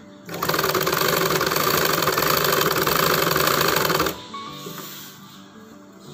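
Domestic sewing machine stitching at a steady speed, a fast even needle clatter that starts right away and stops about four seconds in.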